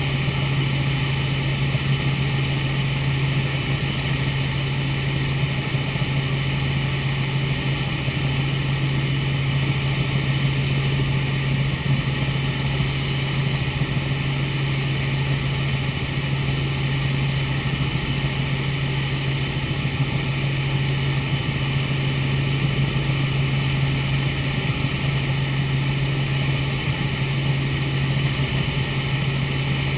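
Cabin noise of a Robinson R44 Raven II helicopter in flight: its Lycoming IO-540 six-cylinder piston engine and rotors make a steady drone with a strong low hum, heard from inside the cockpit.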